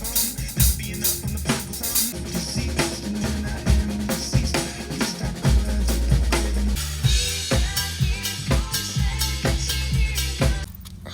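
Music led by a full drum kit playing a busy beat, with kick, snare and cymbals over a low bass line; it cuts off suddenly shortly before the end.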